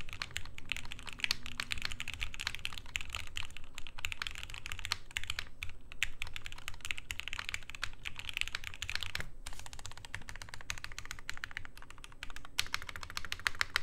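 Fast typing on a Freebird TKL mechanical keyboard with Gateron Ink V2 linear switches in a hotswap PCB and flexible POM plate, with no force-break mod: a dense stream of keystroke clacks, briefly pausing a little past nine seconds. Near the end come spacebar presses that sound off, which the owner puts down to the plate moving out of place.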